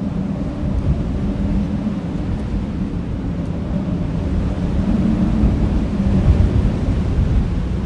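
Wind blowing across a field, heard as a steady low rumble and buffeting on the microphone that swells a little about six seconds in.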